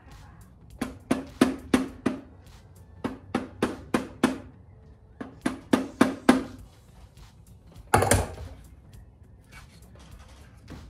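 Hand ratchet tool clicking in three quick runs of strokes, about five clicks a second, with short pauses between runs, while fastening hardware in a car's tail-light mount. About eight seconds in there is one louder rustling thud of a plastic part being handled.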